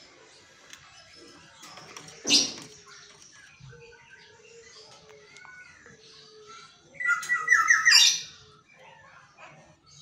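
Black-naped oriole giving harsh squawking calls: a short one about two seconds in, then a longer, louder one about seven seconds in that ends in a falling note, with faint chirps between.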